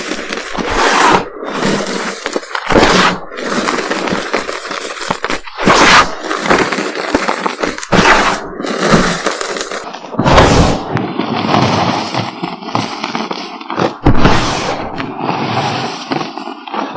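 Reformed gym chalk and its loose powder being crumbled and crushed by hand: continuous gritty crunching, with sharper cracks every second or two.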